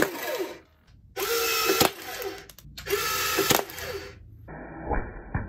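Heng Long 1:16 Challenger 2 RC tank firing its BB cannon three times. Each shot is about a second of motorised whirring from the firing mechanism, with a sharp crack. Near the end comes a duller, quieter stretch with two soft knocks.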